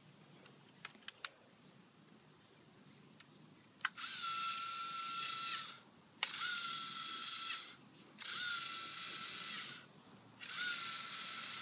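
LEGO Mindstorms EV3 large motors whirring in four bursts of about a second and a half each, every burst opening with a short wavering whine that settles to a steady pitch, while one wheel is gripped by hand. Before the first burst, a few light clicks.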